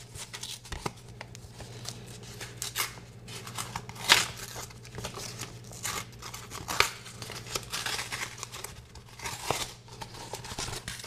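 Packaging being opened and handled by hand: irregular rustling, crinkling and tearing of paper and plastic with sharp clicks, over a steady low hum.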